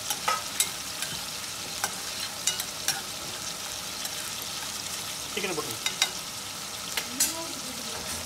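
Chopped onion, dried red chillies and whole spices sizzling in hot oil in a stainless steel frying pan, stirred with a metal spatula that clicks and scrapes against the pan again and again, most often in the first three seconds.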